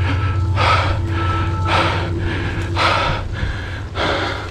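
A mountain biker's heavy, laboured breathing from hard exertion: deep gasping breaths about once a second, over a steady low rumble.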